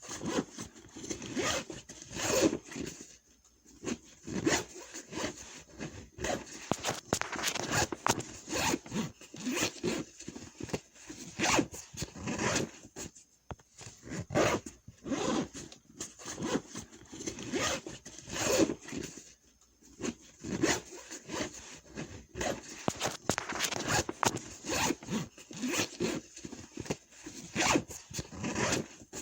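Backpack zippers being pulled back and forth again and again, a steady run of short, irregular zipping strokes.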